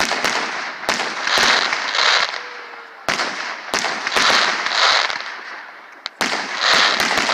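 Aerial firework shells bursting overhead, three in a row about three seconds apart: each opens with sharp bangs and then fades through about two seconds of dense crackling.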